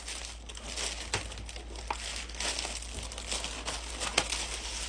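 Clear plastic wrapping crinkling as it is handled, with a few sharp clicks scattered through.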